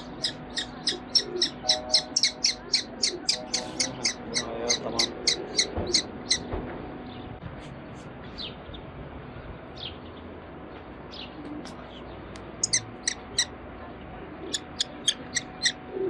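Young common kestrel calling: a fast series of shrill kee-kee notes, about three a second for the first six seconds, then two shorter runs near the end. The fledgling, not yet able to fly, calls while held in the hand.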